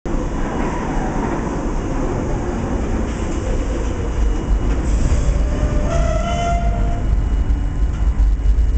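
New York City Subway R32 train pulling into an underground station and slowing to a stop: a steady rumble of wheels on rails, with a short high-pitched squeal about six seconds in.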